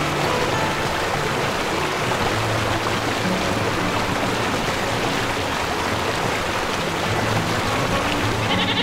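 Steady rushing water with background music underneath.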